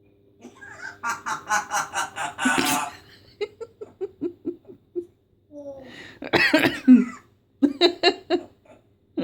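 A pet parrot mimicking human laughter and coughing: a run of quick laugh-like notes, then a louder cough-like burst about six seconds in, and a few short notes near the end.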